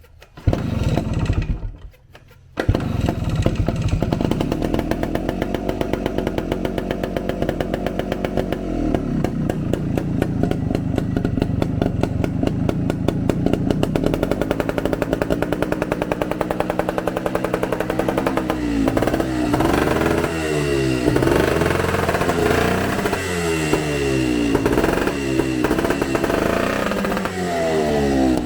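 1975 dirt bike's engine, just fitted with a new carburetor, starting: it runs briefly, cuts out for a moment, then catches about two and a half seconds in and keeps running steadily. From about 18 seconds on it is revved again and again, the pitch rising and falling with each blip of the throttle.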